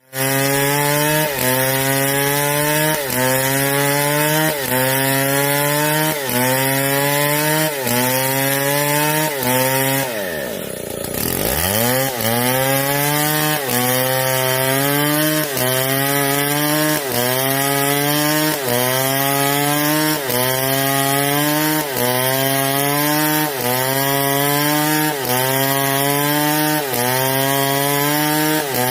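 Chainsaw running under load in wood. The engine pitch rises and falls back in a very regular cycle about every second and a half, and about ten seconds in it drops sharply before climbing back.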